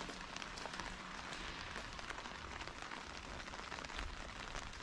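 Steady rain falling, an even hiss with many small drop ticks.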